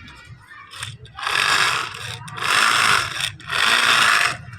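Three bursts of hissing noise, each just under a second long, about a second apart.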